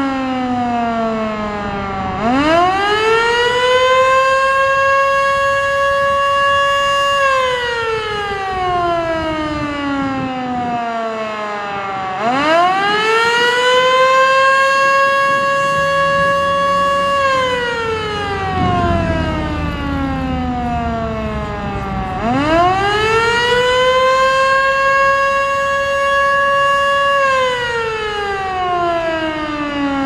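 Federal Signal Model 2 single-tone chopper siren sounding its Attack signal: three wails, each rising quickly to a held pitch for about five seconds, then sliding slowly down before rising again.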